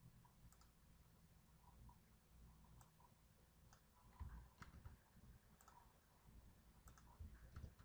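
Near silence with several faint, scattered clicks of a computer mouse.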